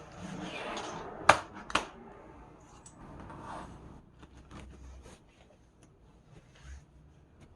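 A plastic computer keyboard being handled: a rustle, then two sharp clicks in quick succession about a second in, followed by scattered light clicks and taps.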